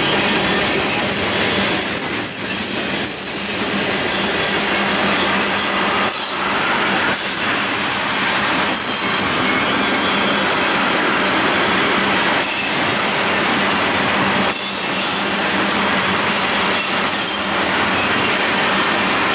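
Freight train cars, mostly tank cars, rolling past close by: a steady rattle and rumble of steel wheels on the rails, with high-pitched wheel squeal now and then.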